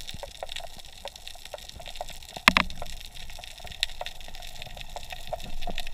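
Underwater water noise picked up by a camera in its housing, full of scattered small clicks and crackles, with one sharp knock about two and a half seconds in.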